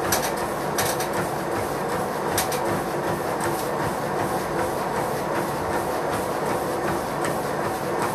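Motorised treadmill running under a runner: a steady motor and belt hum with the repeated thud of running footfalls on the deck.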